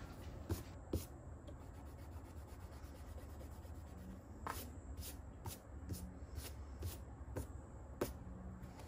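Eraser rubbing over a pencil drawing on a sketchbook page: a soft, quiet scrubbing with light ticks, about two a second in the second half.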